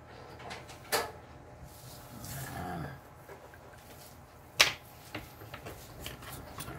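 Two sharp knocks or clicks, a small one about a second in and a louder one past halfway, like tools or a ruler set down on a hard work surface. Between them comes a brief faint voice-like sound falling in pitch, over a low steady hum.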